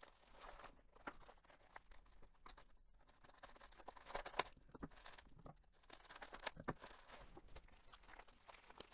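Faint paper-and-plastic crinkling and tearing as a padded paper mailer is ripped open and a plastic poly mailer bag is pulled out of it, in irregular bursts, busiest around four to five seconds in.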